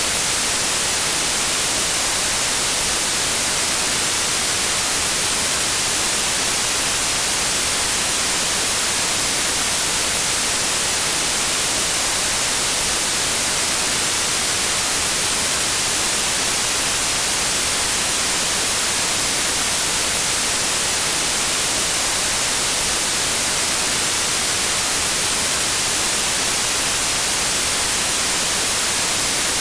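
Steady white noise: an even, unchanging hiss, strongest in the high pitches, with no breaks or variation.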